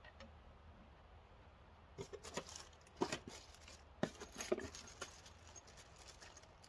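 Screws and small hardware clicking and rattling as a hand rummages through a cardboard box of parts: a quick run of small clicks starting about two seconds in and lasting about three seconds.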